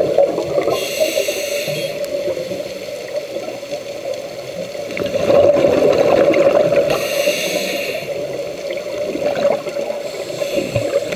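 Underwater sound from a diving camera: a steady, muffled rush of water, with hissing bursts about every six seconds from a scuba diver's regulator breathing.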